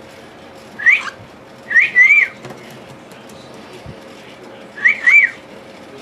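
Cockatiel whistling three short high calls: a quick rising note about a second in, then two two-part whistles, a rising note followed by a brief held one, around two seconds and five seconds in.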